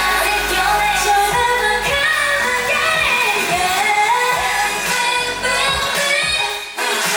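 K-pop song sung by a female singer over a pop backing track with a steady beat, loud through a concert sound system; the music drops out for an instant near the end.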